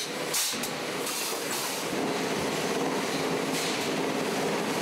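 Industrial machinery running steadily, with a short burst of hissing air about half a second in.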